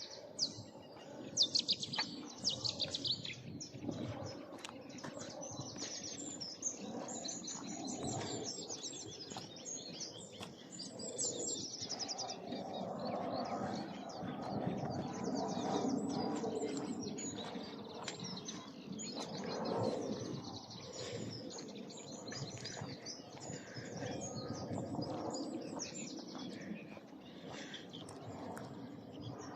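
Several songbirds singing, with rapid high chirps and trills throughout, over a steady low outdoor background noise that swells in the middle.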